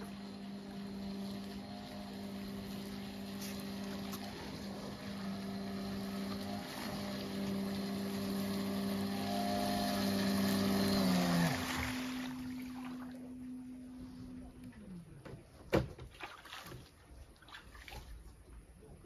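Radio-controlled carp bait boat's electric motors whining steadily, two tones getting louder as it runs on the water; one motor winds down and stops about twelve seconds in, the other about three seconds later. A single sharp knock follows shortly after.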